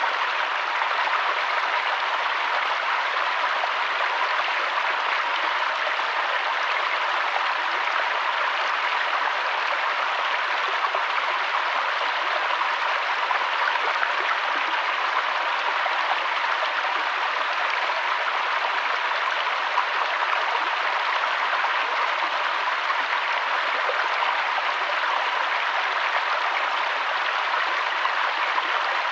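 Steady rushing of a mountain waterfall and stream, an even hiss of falling water that does not change.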